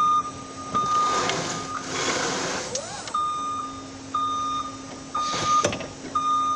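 Forklift reversing alarm beeping: short, high, one-tone beeps about once a second, with a brief gap before it resumes, over a low steady hum.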